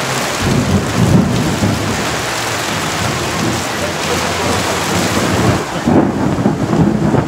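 Hard rain pouring down on plastic tarp awnings and a flooded street, a dense steady hiss of water. Low rumbles swell about a second in and again near the end.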